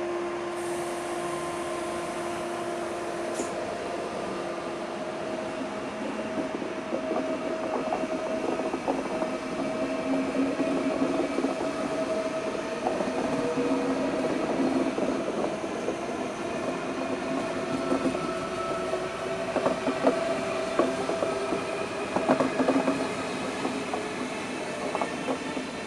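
ICE high-speed electric multiple-unit train rolling past, with a steady hum from its traction equipment and wheels clicking over rail joints. The clicking grows busier from about a third of the way in and is loudest in bunches near the end.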